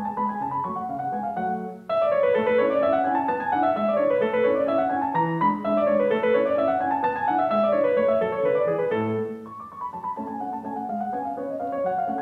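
Background solo piano music: runs of notes rising and falling in waves. There is a brief break about two seconds in, before a new phrase starts.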